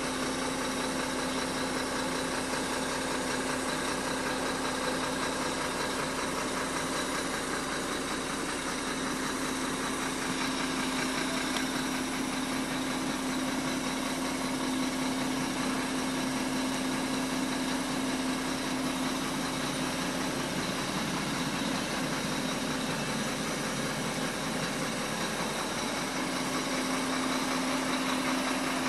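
Sinotruk Howo Max tractor head's diesel engine idling steadily, heard from inside the cab, with a constant low hum that fades for a few seconds after about twenty seconds and then returns.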